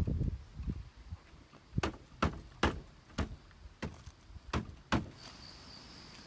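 Footsteps on a hard surface: about seven sharp clacks at walking pace, after a few low thumps. Near the end a faint, steady, high insect trill begins.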